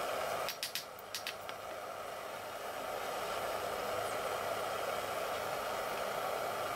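A quick run of light metallic clicks about half a second in, as pliers bend a steel fork tine against an anvil, over a steady rushing background noise.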